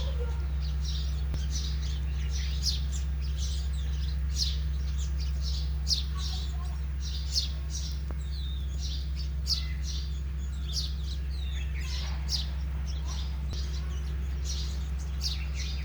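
Sparrows chirping: many short, high chirps come in quick, irregular succession over a steady low hum.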